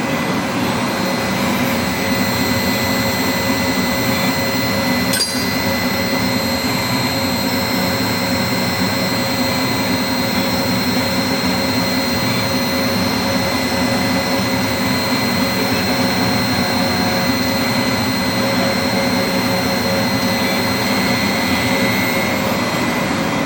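CNC router machinery running steadily: an even mechanical noise with a constant high whine, and a single sharp click about five seconds in.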